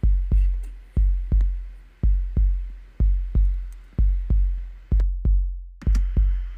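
Heartbeat sound effect played by Amazon Alexa: low double thumps, lub-dub, repeating about once a second, with a short break about five seconds in.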